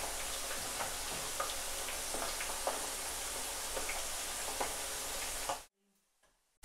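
Jackfruit pieces frying in hot oil in a frying pan: a steady sizzle with scattered small pops and ticks. It stops abruptly shortly before the end.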